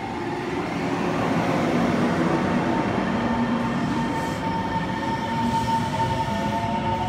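EMU700 electric multiple unit pulling away from the platform, its running noise growing louder over the first two seconds as it gathers speed. Steady motor whine tones run through it, and near the end further tones climb slowly in pitch as the train accelerates.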